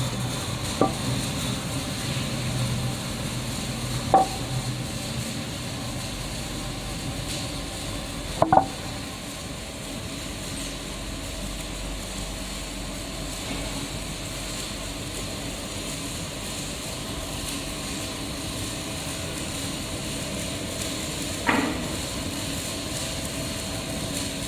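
Steady machine hum in a woodworking shop, with a lower hum that fades out a few seconds in. Four short knocks or clicks stand out over it, the loudest two about four and eight seconds in.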